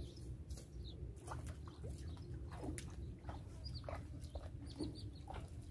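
Small birds calling with short, repeated high chirps and a few falling notes, faint over a low steady rumble.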